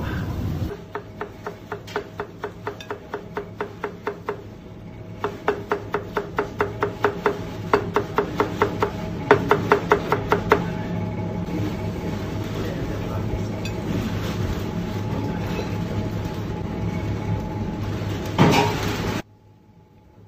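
Chef's knife chopping fresh herbs on a plastic cutting board: quick, even knocks about four a second in two runs, stopping about ten seconds in, over a steady low hum. A single louder knock comes near the end.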